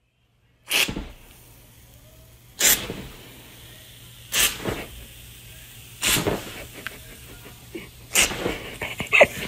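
Aerosol can squirting foam in five short spurts, roughly every two seconds.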